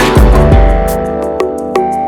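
Background music with guitar and a beat.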